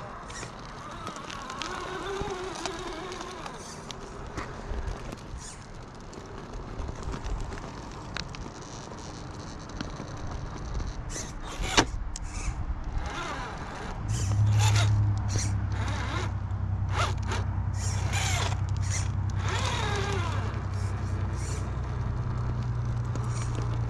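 Axial Early Bronco RC rock crawler on RC4WD Attitude M/T tires crawling over rough ground: small motor and gear whine rising and falling, with tires scraping and crunching over rock in clusters. A steady low hum comes in about two-thirds of the way through.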